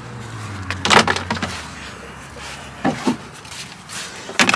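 Sharp knocks and clunks of objects being handled and moved around inside a truck cab as it is cleared out: three separate knocks, the loudest about a second in.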